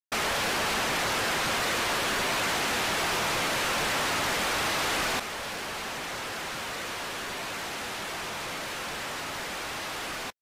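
Steady static hiss with no tone or rhythm in it. It starts abruptly, drops to a quieter level about halfway through, and cuts off abruptly.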